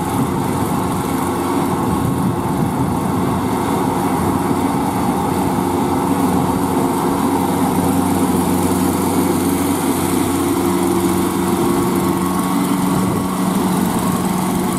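Kubota L4508VN tractor's diesel engine running steadily under load while it tills a flooded rice paddy with a rotary tiller. The engine note dips slightly about ten seconds in.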